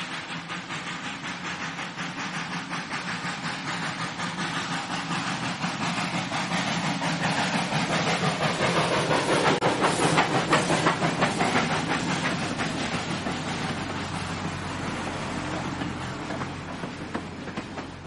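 Steam locomotive passing with fast, even rhythmic beats, growing louder to a peak about ten seconds in and then fading away.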